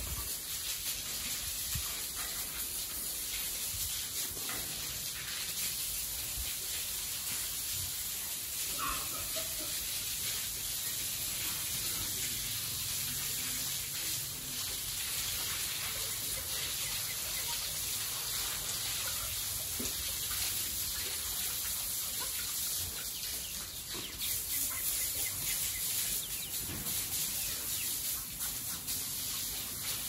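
Steady high hiss of outdoor farmyard background, with a few faint, brief bird calls and light movement in a pig pen.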